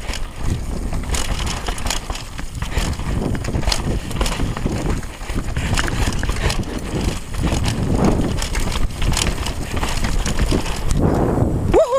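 Wind rushing over a GoPro's microphone, with knobby tyres on a dry dirt trail and a downhill mountain bike's chain and frame rattling over bumps at speed. Right at the end, a short pitched squealing sound begins.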